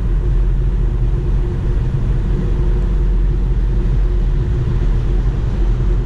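Steady low road and wind noise inside the cabin of a Tesla Model 3 cruising at highway speed, about 70 mph, with a faint steady hum above the rumble.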